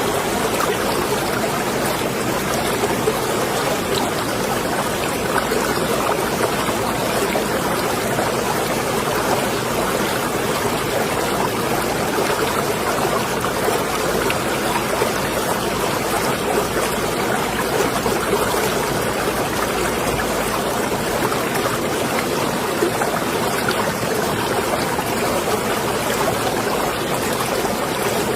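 Water lapping and sloshing in a marina, a steady even wash of small splashes with no single event standing out.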